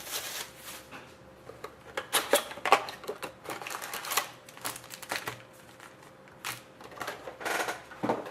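Trading cards and foil pack wrappers handled on a table: irregular light clicks, taps and rustles as a pack of hockey cards is opened and the cards are slid and flipped through.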